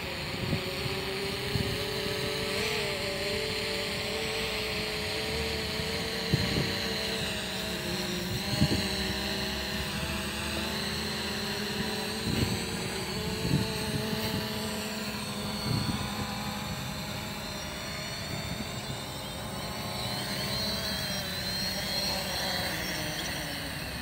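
FIMI X8 SE quadcopter's propellers and motors humming steadily, the pitch wavering a little, as the drone descends to land on its automatic emergency return (failsafe). Short low thumps of wind hit the microphone now and then.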